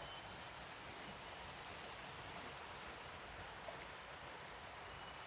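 Faint, steady rushing of a waterfall, an even hiss with no breaks.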